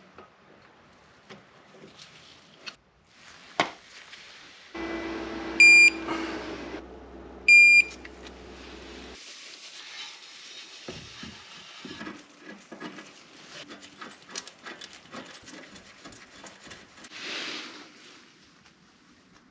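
Hand-tool work on a car's suspension: scattered metallic clicks and knocks of wrench and parts being handled, with two short, loud electronic beeps about two seconds apart in the middle.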